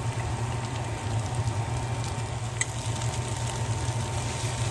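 Cauliflower and potato singara filling sizzling steadily in oil in a pan, with a low steady hum underneath and a single short click about two and a half seconds in.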